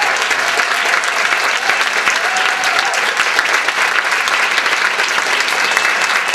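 Audience applauding steadily, with a few voices calling out in the first few seconds, as the acceptance speech ends.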